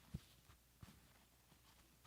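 Near silence in a small room, with two soft low thumps about two-thirds of a second apart and faint rustling.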